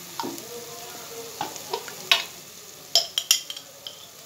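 A wooden spatula stirring onion and tomato frying in oil in a pot, with a steady sizzle and sharp knocks and scrapes of the spatula against the pan, several in quick succession about three seconds in.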